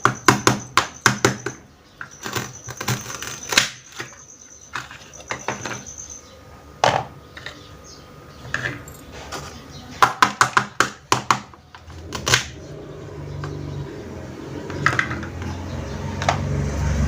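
Small plastic toy kitchenware pieces being handled, clicking and tapping against each other in quick clusters of sharp clicks with quieter handling noise between; a low rumble builds near the end.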